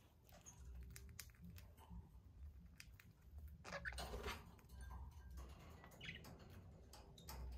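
Budgerigars chirping faintly, with scattered small clicks and taps and a low steady hum underneath.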